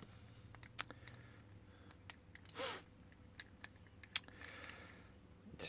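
Faint scattered clicks and taps of small brass padlock parts being handled and worked by hand, the sharpest about four seconds in. There is a breathy sigh about halfway through.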